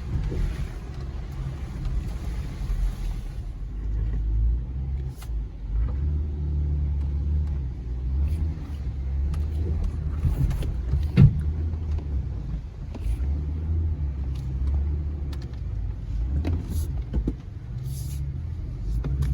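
Jeep Gladiator's 3.6 Pentastar V6 running at low, uneven revs as the truck drives an off-road trail, heard from inside the cab. Scattered knocks and clicks from the truck jolting over the terrain, the loudest a sharp bang about eleven seconds in.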